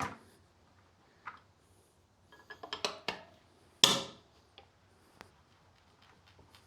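Metal tools clinking and knocking during a motorcycle tyre change: a quick run of clicks, then one sharp knock with a short metallic ring about four seconds in.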